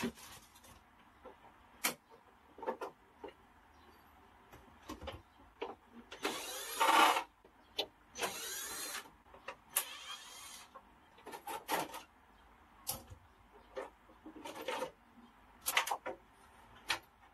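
Plastic clips and cover of an air conditioner's indoor unit being worked loose by hand: scattered clicks and snaps, with a few longer scraping, rubbing sounds, the loudest about seven seconds in.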